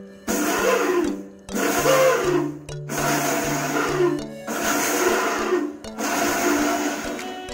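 Electric mixer grinder run in short pulses: about five bursts of roughly a second each with brief pauses between them. Background music plays throughout.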